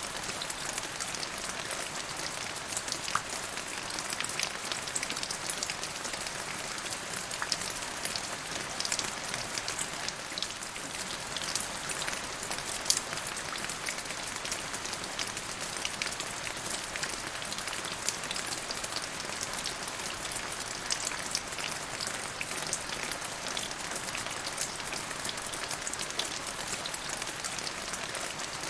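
Steady rain falling on a surface, an even hiss dotted with the close, sharp ticks of single drops.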